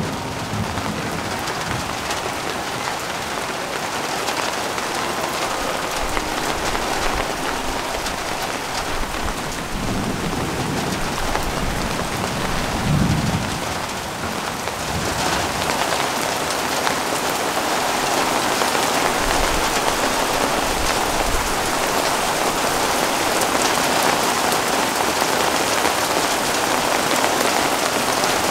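Heavy rain falling steadily, with two low rumbles of thunder about a third of the way in. The downpour grows louder past the halfway point.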